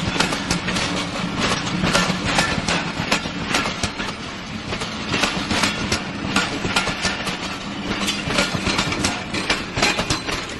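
Pakistan Railways passenger coaches rolling past close by, with a steady clickety-clack of wheels over the rail joints made of many sharp metallic clicks, over a steady low hum.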